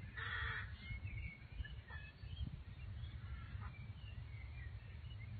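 Outdoor birds calling: a louder call right at the start, then scattered faint short chirps, over a steady low rumble.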